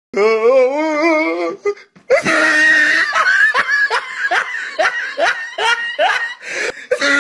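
A person laughing hard in quick repeated bursts, about two a second, each falling in pitch, after a drawn-out wavering vocal cry at the start and a short break.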